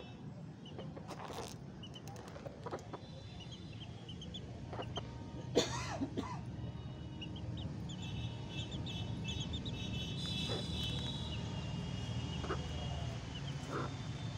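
Young chicks peeping, many short high-pitched chirps, thickest in the second half, with a few short lower calls among them over a steady low hum. A single sharp, loud sound about five and a half seconds in.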